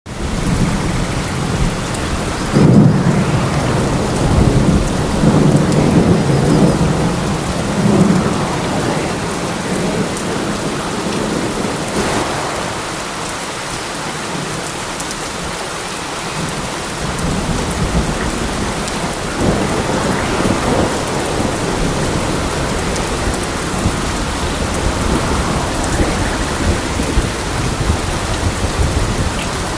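Steady heavy rain with thunder rumbling under it, the rumbles heaviest from a few seconds in to about eight seconds and swelling again a couple of times later.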